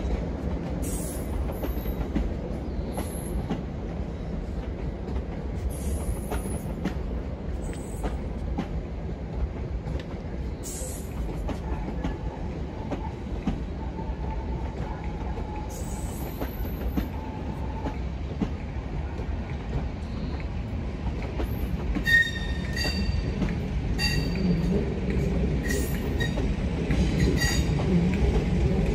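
A South Western Railway Class 701 unit's coaches rolling slowly over the rails, moved unpowered as an empty stock transfer: a steady low rumble with scattered wheel clicks. Intermittent high-pitched wheel squeal starts about three-quarters of the way through, as the rumble grows a little louder.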